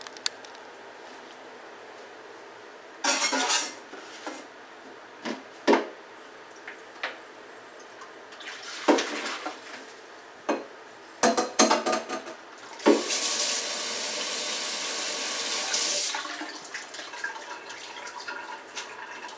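Steel saucepan and plastic colander knocking and clattering in a stainless steel sink, then water pouring into the sink for about three seconds as rice vermicelli is drained.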